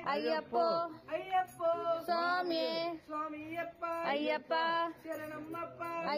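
A woman's voice singing a devotional song in long phrases with held, gliding notes.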